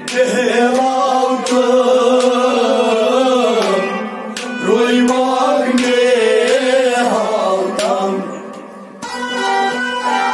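A male voice singing a Kashmiri kalam over harmonium and a bowed string instrument, in two long phrases with a short break between them. Near the end the singing stops and the harmonium and strings carry on alone. A few sharp percussive strikes fall along the way.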